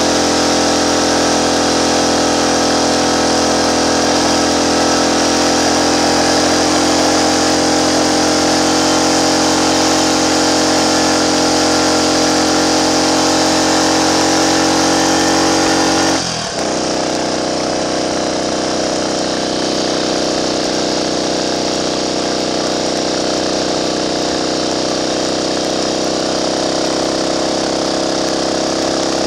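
Triumph Trials Cub's single-cylinder four-stroke engine running steadily under way on the road. About halfway through, the revs drop briefly and settle lower.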